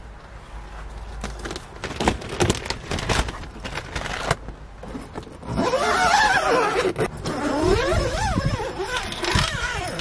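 A clear urethane window sheet being let down and hung over an open van tailgate: rustling and clicking at first, then about halfway through a louder, longer stretch of crackling, crinkling plastic with a warbling edge as the sheet is shaken out and settles.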